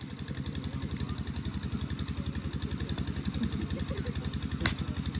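An engine idling with a steady beat, and about four and a half seconds in a single sharp crack of a cricket bat striking a plastic ball.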